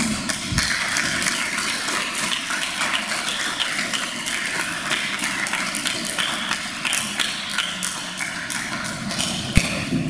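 Audience applauding steadily, with one low thump near the end.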